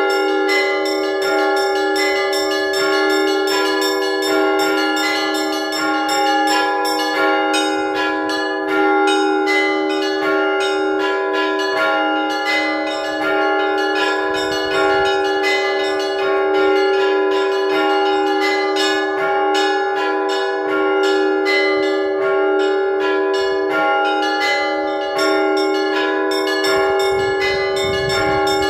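Orthodox church bells rung by hand in a continuous peal: quick, dense strikes over the lingering ring of several bells of different pitch. This is the ringing that calls parishioners to prayer.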